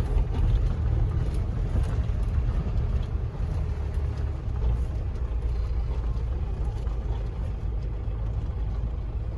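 A vehicle driving: a steady low rumble of engine and road noise.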